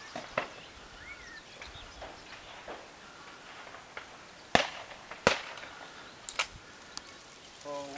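Shotgun shots at a clay shoot: a pair of sharp reports about three-quarters of a second apart a little past halfway, with fainter, more distant shots before and after.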